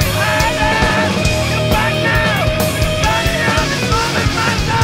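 Loud, dense rock music: a driving drum beat over heavy bass and distorted instruments, with a high lead line that holds notes and slides between them.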